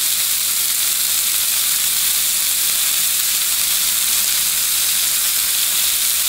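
Oil-coated, spiced chicken strips sizzling steadily as they sear in a frying pan over medium-high heat.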